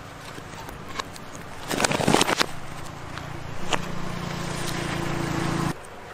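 Dry coconut husks clattering and knocking as they are flipped and tossed with a bamboo pole, loudest in a quick cluster about two seconds in. From nearly four seconds in a steady low motor hum runs, then cuts off abruptly near the end.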